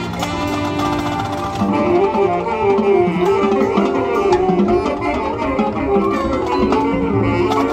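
High school marching band playing its field show: a pitched melody that moves up and down over drums and front-ensemble percussion, getting louder about two seconds in.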